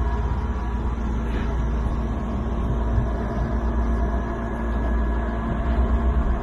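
Steady low mechanical rumble with a constant hum, the running noise of a vehicle.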